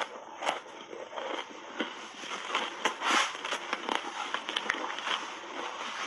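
Ice chunks coated in dry matcha powder being bitten and chewed: dense, irregular crunching and crackling.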